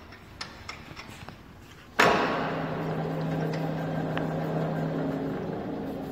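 Centre lathe started about two seconds in: a sudden loud clunk as the spindle engages, then the motor and headstock gearing running with a steady hum while the chuck and steel workpiece spin. A few light clicks come before it, and the hum begins to fade near the end as the lathe slows.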